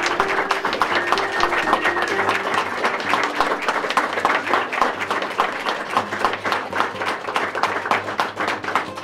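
Audience applauding, with quiet acoustic guitar music underneath; the applause slowly dies down.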